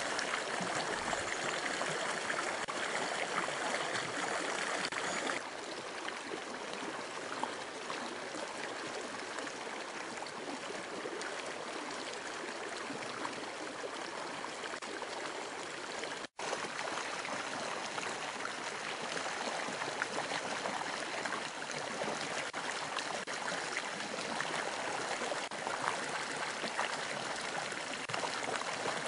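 Small mountain creek rushing and splashing over a rock step into a pool, a steady water noise. The level drops slightly about five seconds in and cuts out for an instant about halfway through.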